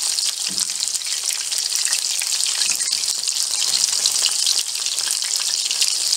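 Gram-flour (besan) battered chicken pakoras deep-frying in hot oil: a steady, dense sizzle full of fine crackling.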